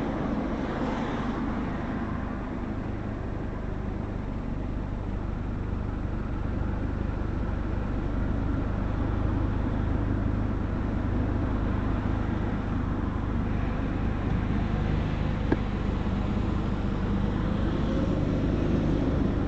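Steady road and engine noise of a car being driven, with a constant low hum and one short click about fifteen seconds in.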